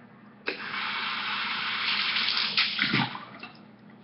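Water running from a kitchen tap, turned on about half a second in and off again after about three seconds.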